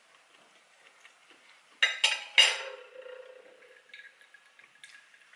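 Metal fork set down on a ceramic dinner plate: three sharp clinks about two seconds in, followed by a short ring, with faint scrapes of cutlery on the plate before it.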